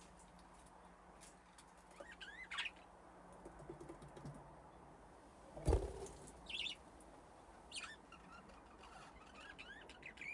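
Budgies chirping in short scattered calls with quick pitch glides, with a single loud thump about halfway through.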